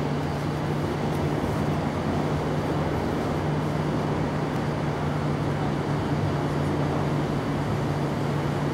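Steady mechanical noise with a constant low hum, unchanging throughout.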